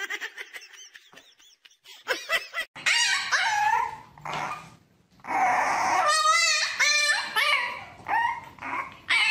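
French bulldog puppy whining and yipping: a run of short cries that rise and fall in pitch, starting about three seconds in and repeating over and over.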